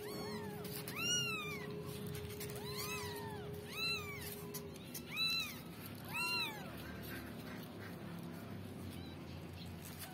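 Newborn kittens mewing: about six short, high-pitched mews, each rising and falling, in the first seven seconds, then quieter.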